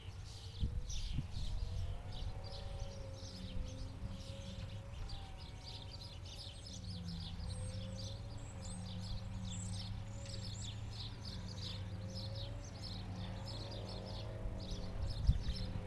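Steady low drone of a tractor and forage harvester engine working across the field, with a gently wavering hum, and many small birds chirping over it throughout.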